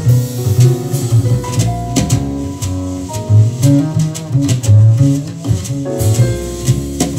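Instrumental music played back through a pair of vintage Diatone DS-251 loudspeakers, three-way units with alnico-magnet 10-inch woofers. It has a strong bass line and drums.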